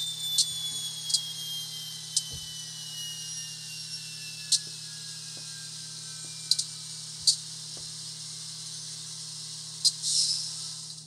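Diesel locomotive sound from an ESU LokSound decoder playing through the 10 mm speaker of an N scale Athearn SD70. A high whine slowly falls in pitch over a steady low hum, with sharp clicks every second or two and a burst of hiss near the end.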